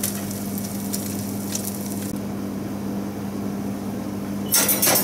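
A steady low electrical hum from the commercial grill and kitchen equipment, with faint scrapes and clicks of a metal spoon spreading miso onto fish on a wire grill rack. About four and a half seconds in there is a brief, louder noisy burst.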